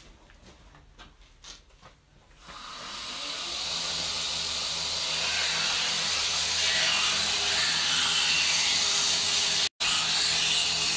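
A few faint knocks, then a grinder motor starts about two and a half seconds in, spins up and runs with a steady hiss of grinding as the edge is taken off a buffalo horn scale.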